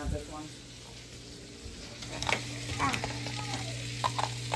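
Breaded chicken tenders sizzling in hot frying oil, an even crackling hiss over a steady low hum. A few light knocks come about two seconds in and again near the end.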